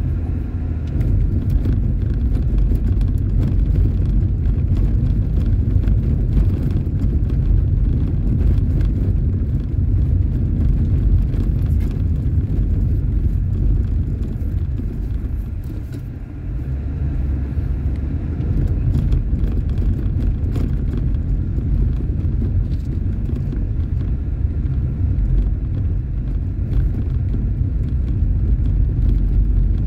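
Road noise inside a car driving on a cobblestone street: a steady low rumble from the tyres on the stones. It eases briefly about halfway through, then picks up again.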